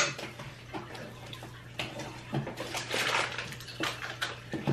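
Kitchen handling sounds: a sharp clack at the start, then scattered taps and clinks of hands and utensils on a glass bowl and jars. Around three seconds in there is a crinkling of a plastic packet of chocolate chips as it is opened and handled.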